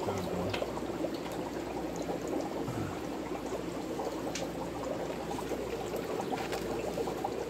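Steady splashing of water pouring into an aquarium and churning the surface, with a few light taps.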